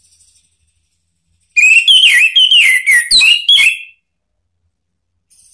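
Orange-headed thrush singing: a loud phrase of about two and a half seconds made of quick, rich whistled notes that sweep up and down. A faint, thin, high-pitched sound comes just before it, and again at the very end.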